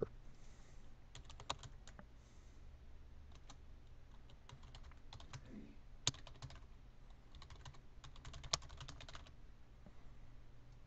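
Faint typing on a computer keyboard, in several short bursts of keystrokes with pauses between them.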